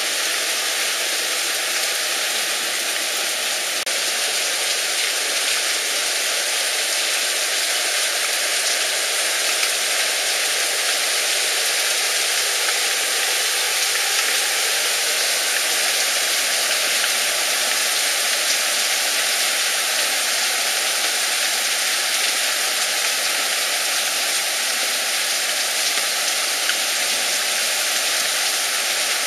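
Heavy storm rain pouring down, a steady, even hiss without a break.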